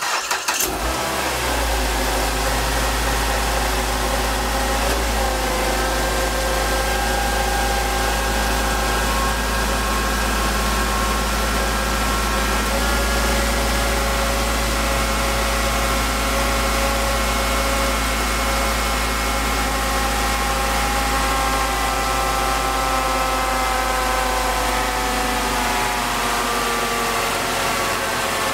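A 2011 Mazda3's four-cylinder engine starts up and idles steadily in park, with its pitch easing down slightly near the end. The running engine drives the automatic transmission's own pump, which pushes the old fluid out through the cooler line during a fluid flush.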